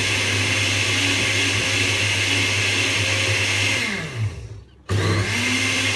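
Rotel ProMix 474 blender running steadily as it blends vegetables in its glass jug. A little before four seconds in the motor is switched off and winds down with a falling pitch. It starts again abruptly about five seconds in.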